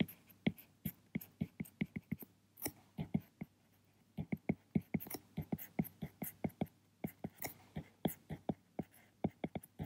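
Stylus tapping and stroking on a tablet screen while writing characters by hand: a run of short, irregular clicks, several a second, with a pause of under a second a little before halfway.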